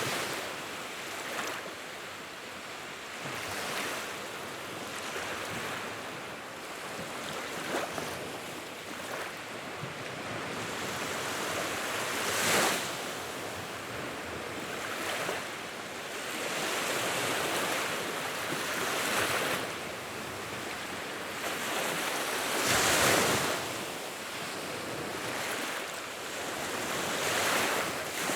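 Wood fire in a fireplace burning: a steady rushing of flames that swells every few seconds, with sharper crackling surges, the loudest about twelve and twenty-three seconds in.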